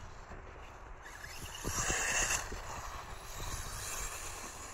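Electric 1/8-scale RC off-road car running on an astroturf track, with a louder rush of motor and tyres about two seconds in, over wind noise on the microphone.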